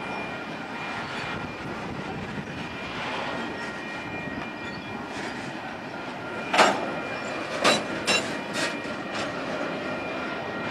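Intermodal freight train of trailers on flatcars rolling past with a steady rumble of wheels on rail. Several sharp clacks come between about six and a half and nine seconds in, the first the loudest.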